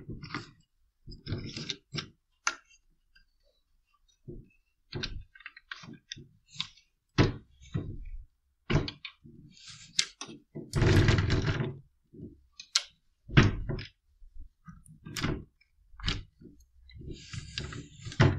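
Handling noise from a CamRock TC-63 camera tripod: a string of irregular plastic clicks and knocks as its head and legs are worked by hand, with one longer rubbing sound of about a second near the middle.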